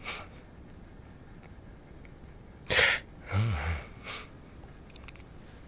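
A man's short, sharp breath burst through the nose and mouth about three seconds in, followed by a brief low vocal hum that falls in pitch, with fainter breaths around it.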